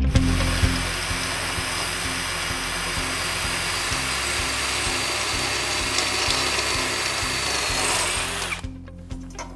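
JCB cordless drill with a multi-purpose bit boring through a piece of iron: a steady drilling noise with a faint high whine, stopping about eight and a half seconds in as it breaks through. Background music with a steady beat plays underneath.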